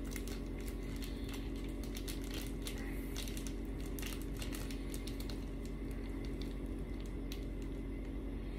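Plastic sauce sachet being squeezed and crinkled over a plate of noodles, a run of faint irregular crackles and clicks, over a steady low hum.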